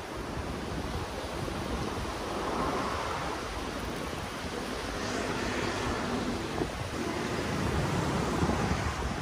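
Seaside ambience: a steady rushing wash of surf on the beach mixed with wind buffeting the microphone, swelling a little in the second half.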